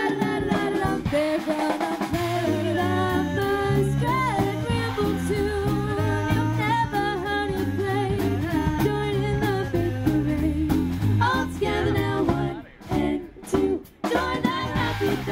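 Live swing big band with a group of women singing into microphones, backed by electric bass and horns. Near the end the music drops out briefly a few times, then the band comes back in full.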